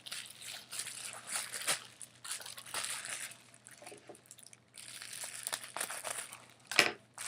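Packaging crinkling and rustling as it is handled and opened, with a sharp knock near the end.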